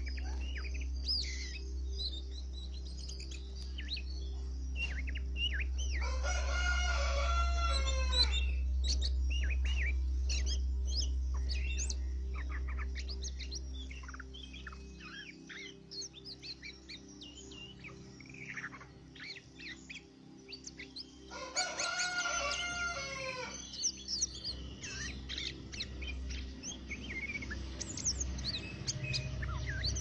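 Many small birds chirping and calling, with a rooster crowing twice, about six seconds in and again about twenty-one seconds in, each crow lasting about two seconds.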